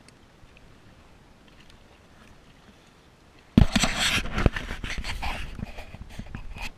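Loud rubbing, scraping and knocking right at the kayak-mounted camera, starting suddenly about three and a half seconds in, as a person's body brushes against it and the kayak is jostled beside the dock.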